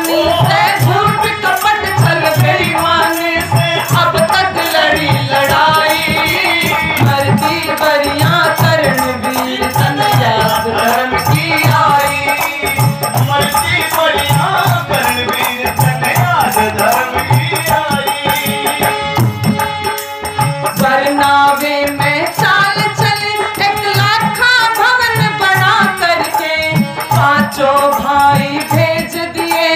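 Live Hindi devotional bhajan: a woman singing to harmonium, with a dholak and a rattling hand percussion keeping a steady beat, and a man's voice joining in.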